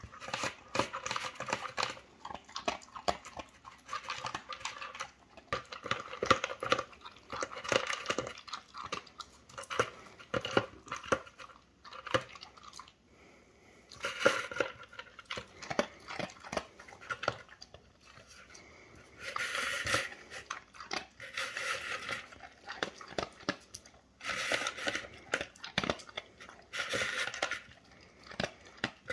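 A chocolate Labrador retriever eating dry kibble from a plastic slow-feeder bowl: bouts of crunching and many sharp clicks as it picks the pieces out, broken by a few short pauses.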